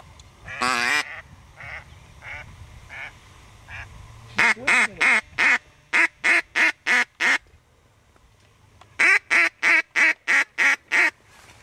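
Mallard duck call blown by a hunter: a long quack, a few soft quacks, then two runs of loud, evenly spaced quacks, about three a second, calling to circling mallards.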